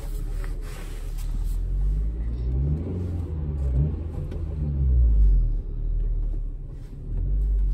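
2015 Honda Civic Si's 2.4-litre four-cylinder engine running at low revs in reverse, heard from inside the cabin as a low rumble. Its pitch rises and falls a few times around the middle.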